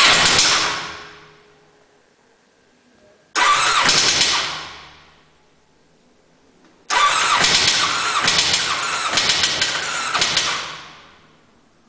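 A car engine being cranked by its starter three times without starting: two short tries, then a longer try of about four seconds, each dying away when the key is released.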